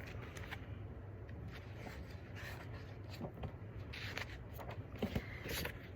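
Faint rustling and a few light taps of paper as a picture book's pages are handled and turned, over a low steady hum.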